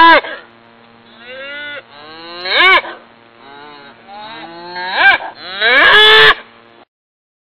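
Cattle mooing over and over, each call rising then falling in pitch. The loudest calls come at the start, about three seconds in and near the end, with fainter ones between. The last call is long, and then the sound cuts off suddenly.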